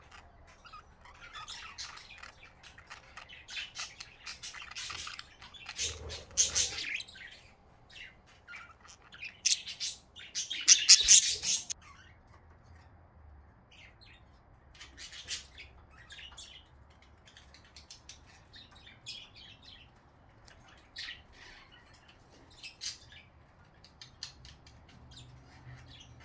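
Budgerigars chirping and chattering in short, high calls, busiest and loudest about ten to twelve seconds in.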